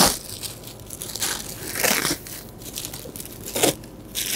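Clear plastic wrapping crinkling and crackling as it is pulled off a rolled-up inflatable paddle board. A sharp rustle comes at the start, with louder crinkles about two seconds in and again near the end.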